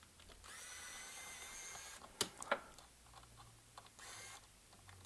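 Small cordless electric screwdriver undoing screws on a limit switch housing: its motor whines steadily for about a second and a half, a couple of sharp clicks follow, and it runs again briefly near the end.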